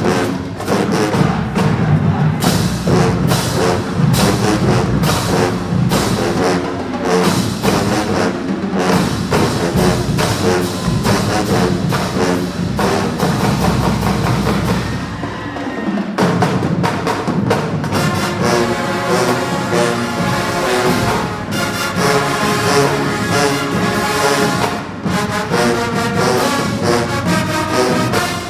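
Marching band brass and drums playing loudly. About sixteen seconds in the music thins out briefly, then a new passage starts with held brass chords over the drums.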